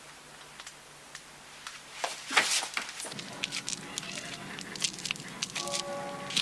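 A quiet low hum of room tone, then a short rustling burst about two and a half seconds in. After it come many small crackles and clicks, and a few held musical notes enter near the end.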